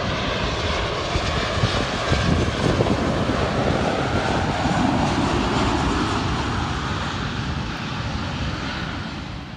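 Turbofan engines of an Embraer regional jet flying low overhead on final approach to land: a loud, steady jet rumble that fades toward the end.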